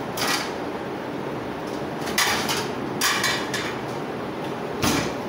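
Deep pull-out kitchen drawer with a metal dish basket being slid open and pushed shut on its runners, the plates and pans inside rattling, with a sharp knock near the end as it closes.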